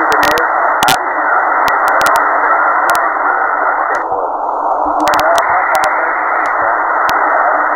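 Shortwave radio receiving the 80-metre ham band in lower sideband: a steady hiss of static, cut off above the treble, with sharp crackles and faint garbled sideband voice. About four seconds in the hiss loses some of its top for about a second, as the receiver's bandwidth filter is switched.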